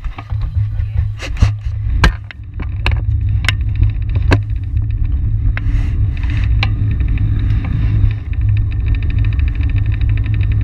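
Steady low rumble of a track bicycle rolling on the concrete velodrome, with wind on the bike-mounted camera's microphone. Several sharp clicks and knocks sound over the first four or five seconds, and a fast, even ticking starts near the end.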